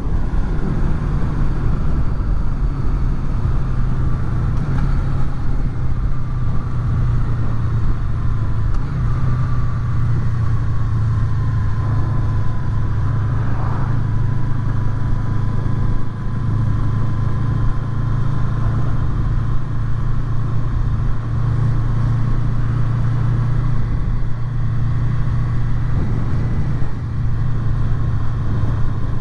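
Honda VFR800's V4 engine running steadily while the motorcycle is ridden along, with a thin, steady high whine over the engine note.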